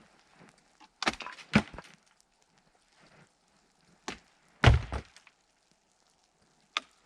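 Large icicles being struck and broken off a roof edge. A few cracking knocks come about a second in, another crack near four seconds, and the loudest, heaviest thud just before five seconds as ice breaks and falls. One more knock comes near the end.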